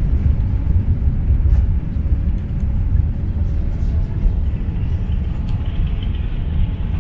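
Inside the cabin of a Boeing 787-8 airliner during its takeoff roll: a loud, steady, deep rumble of the engines at takeoff power and the wheels on the runway as the jet picks up speed.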